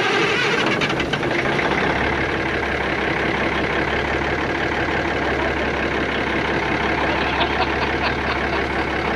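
Cummins Big Cam IV 400 inline-six diesel in a 1988 Kenworth K100E cab-over truck, running steadily right after being restarted. The engine has been standing unused for nine years.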